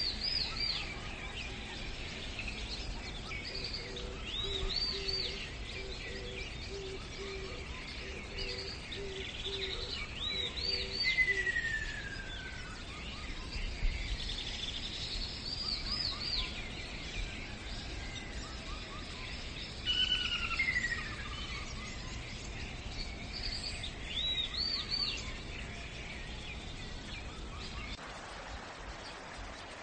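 Birds singing over a steady outdoor hiss: bursts of short, quick up-and-down chirps every few seconds, two long falling whistles, and for a while a low repeated note underneath. The chirping stops near the end.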